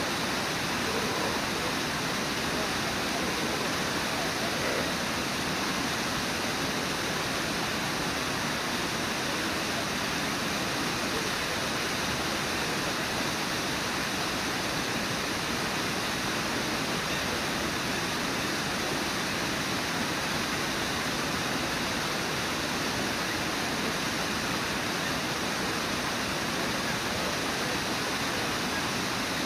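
Steady rushing of river rapids: an unbroken hiss of whitewater at an even level.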